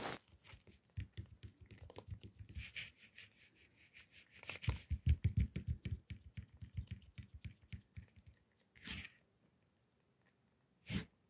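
A kitten crunching dry cat kibble: a rapid run of small crunches and clicks for about eight seconds, busiest about halfway, then stopping. Two short, sharp bursts of noise come near the end.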